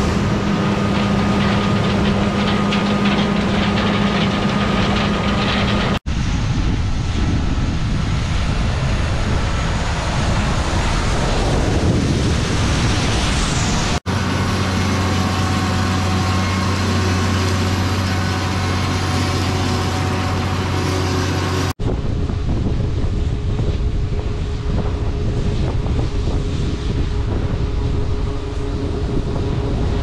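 John Deere combine harvesters running steadily while harvesting corn, with wind on the microphone. The sound changes abruptly three times as one clip cuts to the next, one stretch carrying a strong steady low hum.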